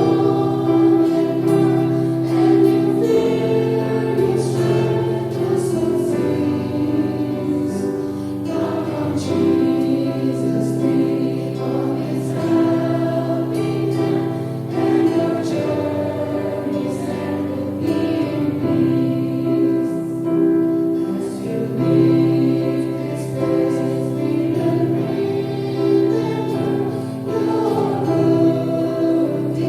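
Choir singing a slow Christian song, the voices holding long chords that change every second or two.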